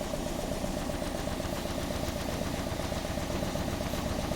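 Toyota Corolla 1.6 engine idling with a steady fast pulse, missing badly: a heavy misfire that the mechanic traces to failing ignition coils.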